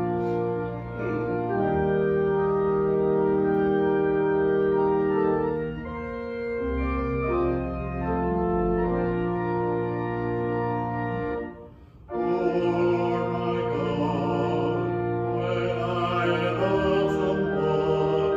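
Organ playing slow, held hymn chords that change every second or two. About twelve seconds in it pauses briefly, then comes back fuller and brighter.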